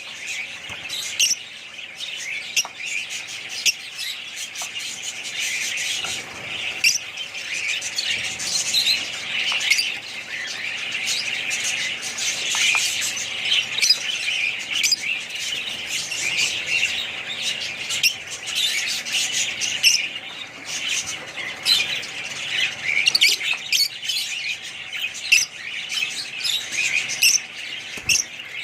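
Many small parrots chattering together, a dense, continuous mix of overlapping chirps and squawks.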